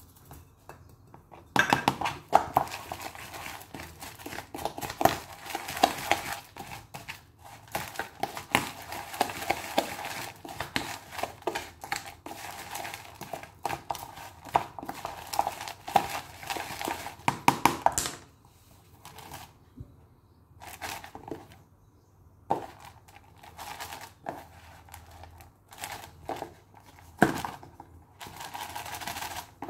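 A plastic spatula stirring a dry, seedy canary rearing-food mix in a plastic tub: continuous scraping and rattling of seeds against the plastic, which stops about eighteen seconds in. After that, a few separate knocks and rustles.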